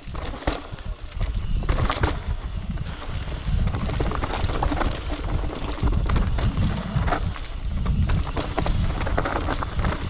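Mountain bike rolling fast down a rocky, loose dirt trail: a steady low rumble of tyres and trail noise, with scattered knocks and rattles from the bike as it runs over rocks.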